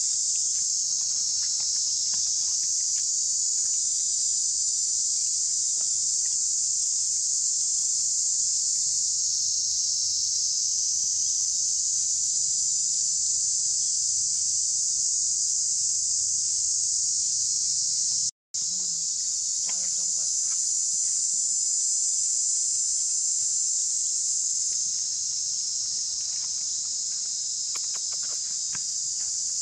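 Chorus of insects shrilling steadily at a high pitch, unbroken except for a split-second cut-out about two-thirds of the way through.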